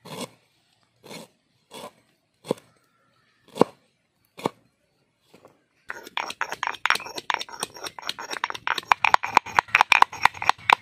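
A large curved knife chopping ginger on a wooden board, about six separate strokes roughly a second apart. About six seconds in, a stone pestle starts pounding in a stone mortar, a fast, dense run of sharp taps and clicks that is louder than the chopping.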